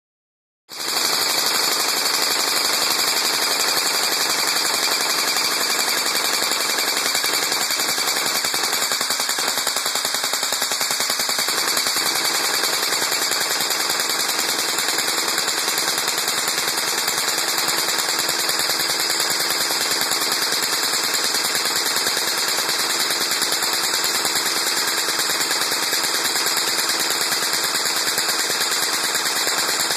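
Airsoft electric M4 (AEG) with a MOSFET firing full-auto in one long, unbroken burst: the gearbox cycles in a fast, even rattle that starts within the first second.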